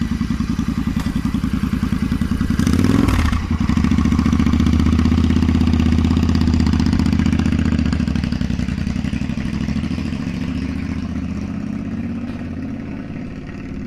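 Royal Enfield Interceptor 650 parallel-twin engine running with its silencer (muffler) removed, very loud. It is revved once about three seconds in, runs hard and steady, then fades as the bike pulls away.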